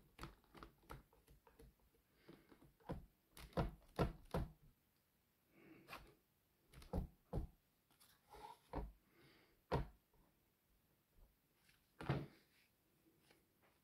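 Irregular taps, scrapes and a few louder thunks of a palette knife working thick oil paint on a canvas board.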